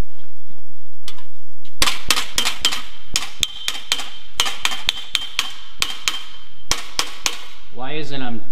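Hammer and hand dolly striking the tack welds of a thin steel panel: a quick run of sharp metallic taps, about five a second, with a ringing tone. The taps start about two seconds in and stop about a second before the end. The tacks are being hammered on the dolly to stretch them and bring the welded panel back into alignment.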